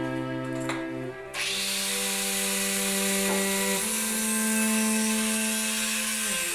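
A Makita angle grinder starts grinding metal about a second in and keeps going steadily, a dense hiss, over background music of sustained string-like notes.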